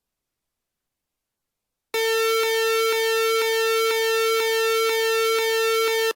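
Electronic school bell chime played on a synthesizer: a steady held tone under a run of notes that change about twice a second. It starts about two seconds in and cuts off suddenly.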